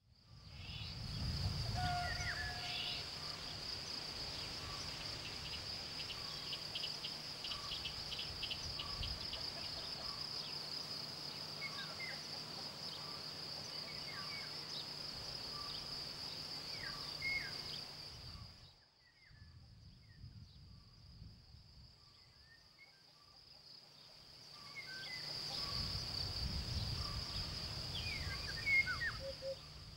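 Field ambience dominated by a steady, high-pitched, cricket-like insect trill, with a few faint, short bird whistles scattered through it. The trill drops away for several seconds past the middle and comes back near the end, with a low rumble near the start and again near the end.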